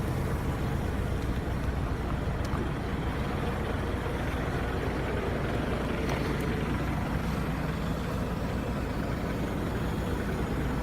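Diesel engine idling steadily, with an even low hum.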